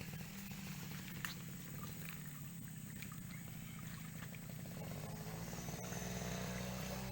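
Low, steady buzzing hum of a bulldozer's motor running, with a fast flutter. It grows louder and higher-toned from about five seconds in, with a few faint clicks.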